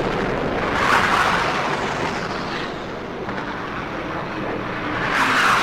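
Hawker Hunter jet noise passing overhead, a continuous rushing sound that swells about a second in and again near the end.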